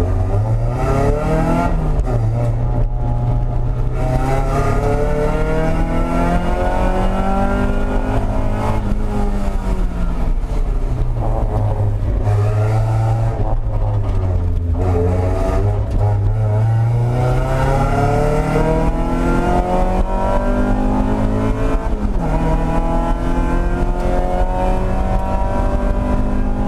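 Mazda Miata race car's four-cylinder engine heard from inside the cabin under hard track driving: the engine note climbs repeatedly under acceleration and falls away under braking. A sudden drop in pitch at an upshift comes about 22 seconds in.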